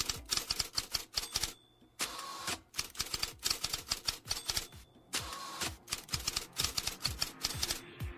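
Typewriter keys clacking in quick, irregular strokes, with a brief pause about two seconds in and a few low thuds underneath.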